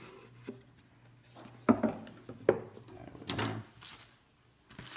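Cardboard earbud packaging handled on a wooden tabletop: two sharp knocks, the loudest sounds, a little under two seconds in and again about a second later, then cardboard rubbing and sliding as the inner box is drawn out of its sleeve.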